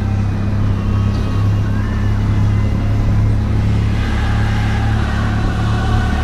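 Benelli TRK 502X motorcycle's parallel-twin engine running at a steady pitch while riding, with a steady rush of wind noise over it.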